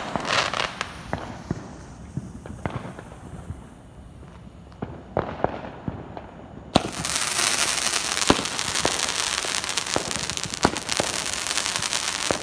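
Fireworks: scattered sharp pops and bangs, then about seven seconds in a sudden loud, dense hiss with a steady run of pops as a multi-shot firework cake fires its shots into the sky.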